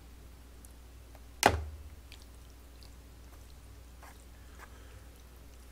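Someone eating noodle soup from a bowl with chopsticks: faint clicks and chewing, with one sharp knock about a second and a half in.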